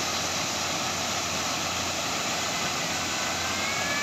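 A sand dredger's discharge pipe jetting a continuous stream of sand-and-water slurry high into the air, a steady rushing noise that does not let up.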